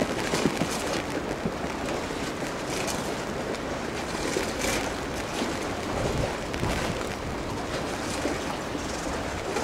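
Steady rushing outdoor noise of wind and water, with a few faint knocks in the first second.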